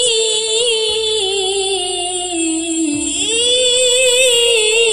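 A high voice singing one long drawn-out note, wavering, slowly sinking and then gliding back up about three seconds in.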